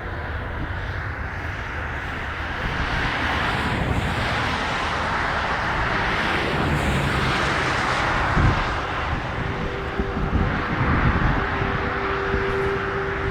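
A passing train: a loud, steady rush of wheels on rail and engine noise that builds over the first few seconds, with gusts of wind buffeting the microphone. A steady hum comes in near the end.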